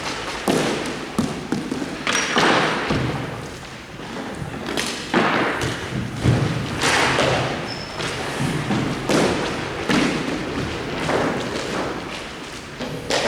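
Irregular thuds and knocks from an informal hockey game in play, sticks and ball or puck striking, about one or two a second.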